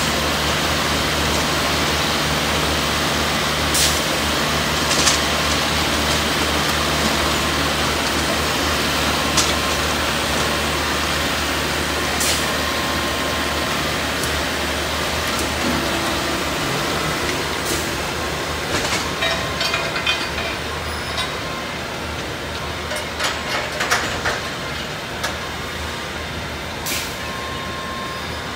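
Diesel engine of a rail-bound track maintenance machine running steadily as it travels along the track, with scattered sharp metallic clanks and clicks that come more often in the second half. The engine sound slowly fades as the machine moves away.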